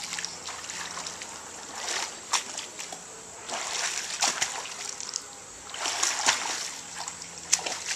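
A child swimming in a pool, her arms and legs splashing the water in bursts a second or two long, with quieter lapping between the strokes.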